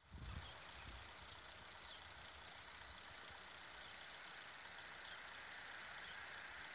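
Faint, steady rumble and hiss of a distant train approaching on an electrified line, growing slightly louder toward the end, with a short low rumble as the recording starts.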